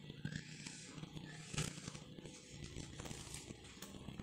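Faint crinkling and clicking of plastic drinking-water cups and their wrapping being handled, with one sharper click about a second and a half in.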